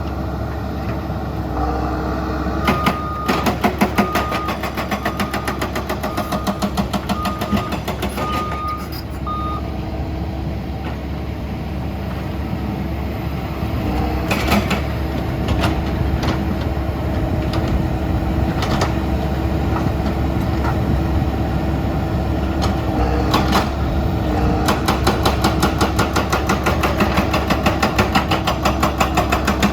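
Excavator diesel engines running steadily, with a travel alarm beeping about once a second for several seconds early on. Fast rattling of tracks comes and goes, and a few sharp metal clanks sound through the middle.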